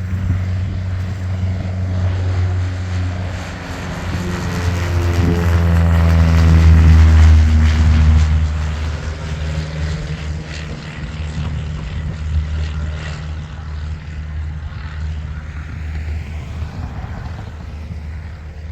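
Propeller airplane taking off and passing low overhead: its engine and propeller drone grows louder to a peak about seven seconds in, then fades as it climbs away.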